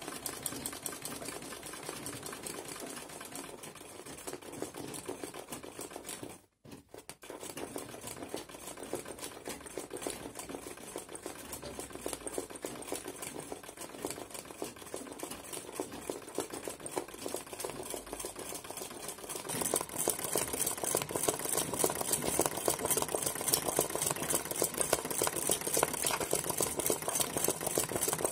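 Old black domestic sewing machine (kara makine) stitching fast for free-motion Chinese-needle embroidery, a rapid even rattle of needle strokes. It stops briefly about a quarter of the way in, then runs on, louder over the last third.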